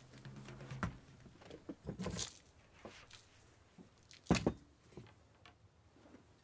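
Glass bottle and small plastic-lidded jars set down on a counter: a few short knocks and clinks, the loudest pair just after four seconds in.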